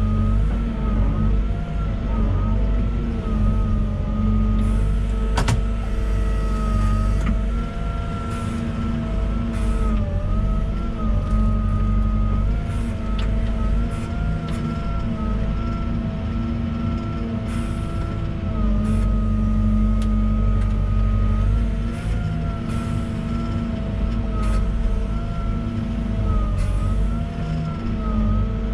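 Volvo EWR150E wheeled excavator's diesel engine running steadily under load. A whine from the hydraulics dips and recovers in pitch every few seconds as the machine works, with scattered clicks and knocks throughout.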